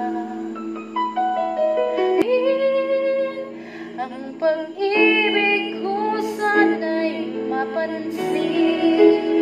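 A woman singing close into a condenser microphone, holding long notes that change pitch every second or so, over a steady instrumental backing.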